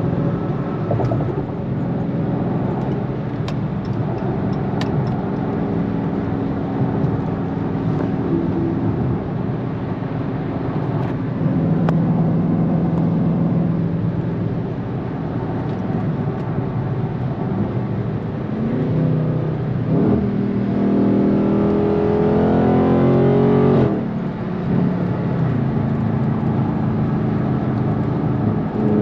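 Dodge Charger's 392 Hemi V8 heard from inside the cabin, droning steadily at highway cruising speed under tyre and road noise. About two-thirds of the way through it pulls up in a rising run for a few seconds, then drops back suddenly.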